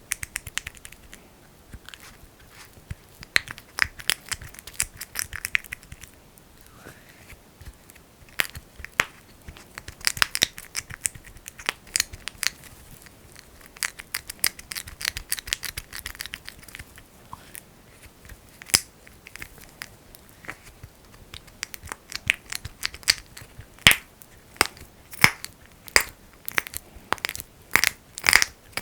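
Fingers working thick, sticky petroleum jelly (Vaseline), giving close sticky clicks and smacks. They come irregularly at first and settle into a steady rhythm of about two a second near the end.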